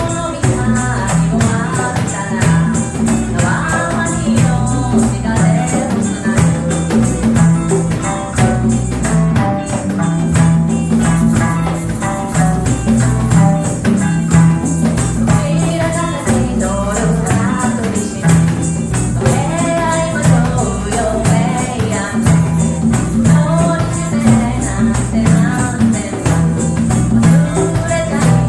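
A live reggae band playing, with a steady bass line, a melodic line above it and hand percussion keeping a fast, even pulse.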